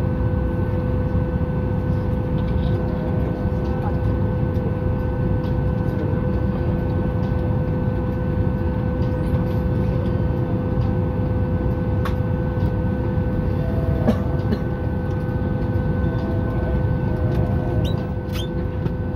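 Steady cabin air-conditioning noise inside a Boeing 737 MAX 8 parked at the gate with engines not yet started: a low roar with a constant whine, and a few faint clicks and knocks.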